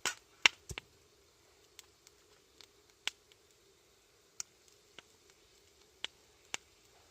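Wood fire crackling: a quick cluster of loud knocks and pops at the start, then single sharp pops spaced about a second apart.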